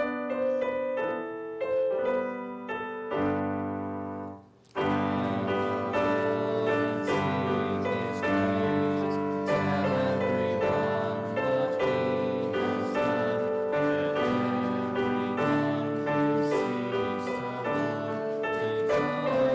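Instrumental music played on a keyboard, with no singing. A few separate chords open it, then after a short break about five seconds in it resumes as a steady, continuous flow of sustained notes.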